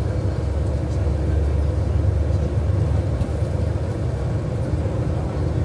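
Inside the cabin of a moving King Long XMQ6871 coach: a steady low drone of its diesel engine and tyre and road noise as it cruises.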